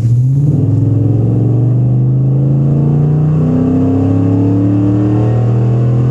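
Ford F-150's 5.0 L V8 through a 3-inch Magnaflow exhaust, heard from inside the cab as the truck accelerates from low speed. The engine note rises in pitch.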